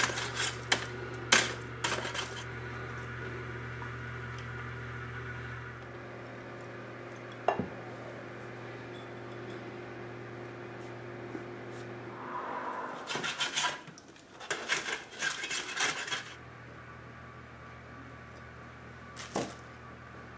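Metal kitchenware clinking and clattering: several sharp clinks in the first couple of seconds, a single clink about halfway through the first half, a busier clatter in the second half and one more clink near the end, over a steady low hum that stops for a few seconds in the middle.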